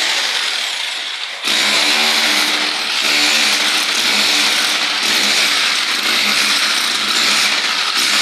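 Power tool running steadily with a loud, hissing machine noise, stepping up in level about a second and a half in.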